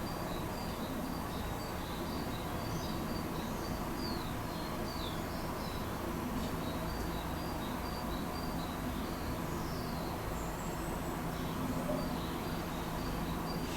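Small birds chirping, with a run of short, evenly repeated high calls and a few sliding chirps about four to five seconds in, over a steady low background rumble.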